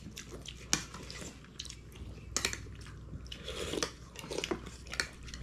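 Someone eating: chewing, with scattered light clicks and clinks of cutlery against dishes.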